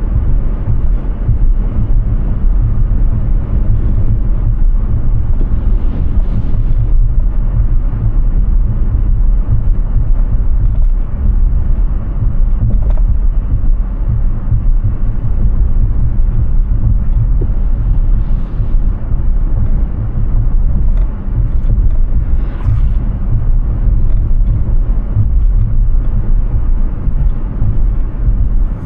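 Hyundai Ioniq 6 electric car driving at speed, heard as a steady low rumble of tyre and road noise with no engine sound. A few faint brief noises rise above it now and then.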